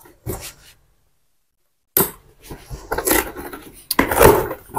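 A shipping parcel being opened by hand: a few short knocks, then after a gap of dead silence a stretch of rustling and scraping of cardboard and packaging, busiest near the end.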